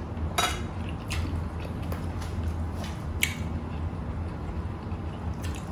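Close-up wet mouth sounds of eating: a few sharp smacks, about half a second in, at one second and at three seconds, over a steady low hum.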